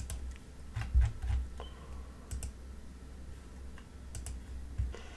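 Computer keyboard keys and clicks tapped irregularly, a scattering of short clicks over a steady low hum.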